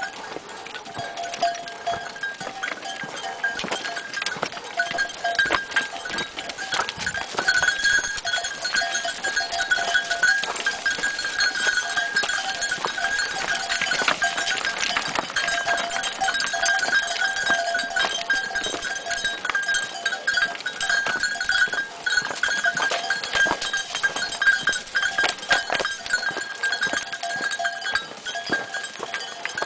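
A herd of goats on the move: their neck bells clank and ring continuously, with hooves clattering on a stony path.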